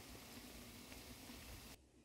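Near silence: a faint steady hiss of background noise, which drops away still lower near the end.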